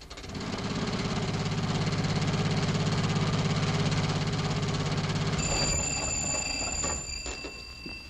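Studio sound-effects device worked by hand to imitate an old jitney bus engine pulling away: a rapid, steady mechanical chugging rattle that starts just after the opening and fades out near the end. A thin high steady tone sounds over it from about five and a half to seven and a half seconds in.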